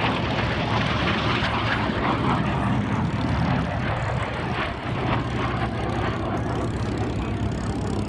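Propeller-driven aircraft's piston engine running with a steady low drone.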